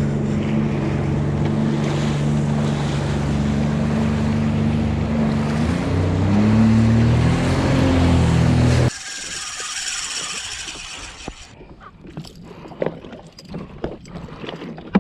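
Sea-Doo jet ski engine running under way, its pitch rising about six seconds in, then cutting off abruptly about nine seconds in. After that comes quieter sloshing and splashing of water with small knocks.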